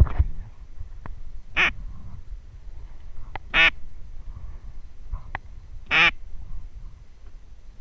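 Duck call blown in three single quacks, about two seconds apart, imitating a mallard hen to draw ducks in. A sharp knock of handling sounds at the very start.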